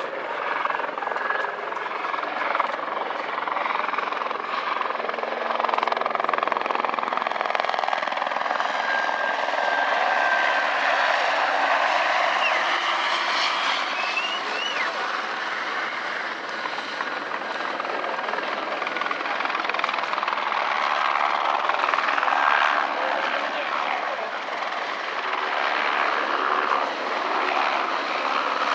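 RAF Squirrel HT1 helicopter, a single-turbine Eurocopter AS350, flying a display pass, with its steady rotor and turbine noise.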